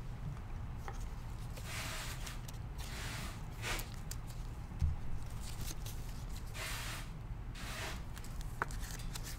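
Trading card packs and cards being handled: several short bursts of crinkling, rustling wrapper and card noise, with a couple of light clicks, over a faint steady low hum.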